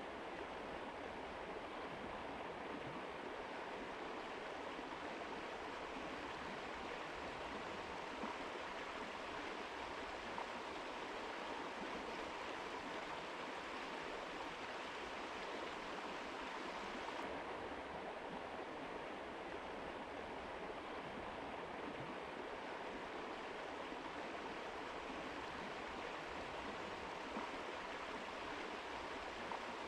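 Mountain river rushing over rocks: a steady, even flow of water noise without change.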